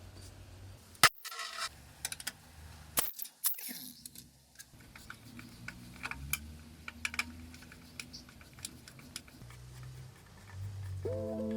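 Scattered sharp clicks, knocks and light scraping of hand tools on small metal parts as an old scooter is taken apart, with a few louder knocks in the first few seconds. Background music starts near the end.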